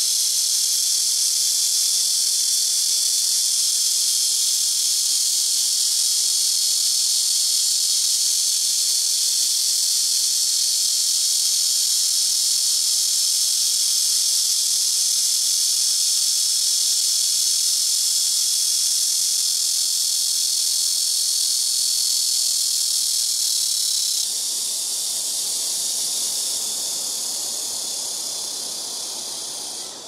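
Blackish cicada (Cryptotympana atrata, Korean 말매미) singing a loud, continuous high buzzing drone. The song changes abruptly about three quarters of the way through and then fades toward the end.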